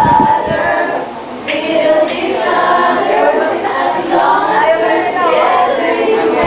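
A group of students singing a song together in unison, mostly girls' voices, with no instruments.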